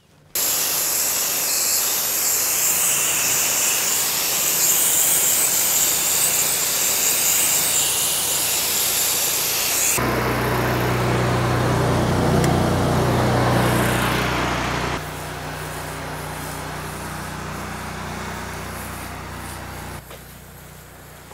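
Spray nozzle spraying, a steady hiss. About halfway through it changes abruptly to spraying over the steady low hum of a running engine, which then gets quieter in two steps.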